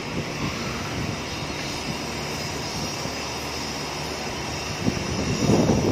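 A steady mechanical drone with a hiss over it, like distant machinery or an engine. Louder, uneven low rumbles come in near the end.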